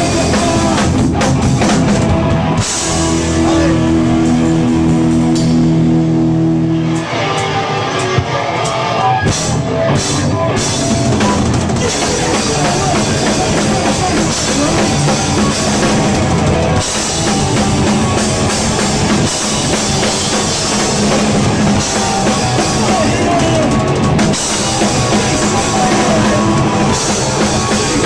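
Punk rock band playing live and loud: drum kit, distorted electric guitar and bass. About three seconds in, a chord is held and rings for a few seconds, then the drums and full band come back in.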